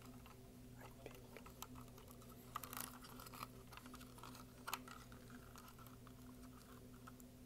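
Soft, scattered clicks and taps of fingers handling a small hard plastic object, with a brief flurry of clicks around the middle and one sharper click a little later, over a faint steady hum.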